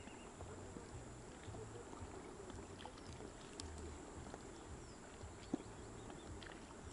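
Small waves lapping softly at the water's edge, with a few faint clicks and one sharper click about five and a half seconds in.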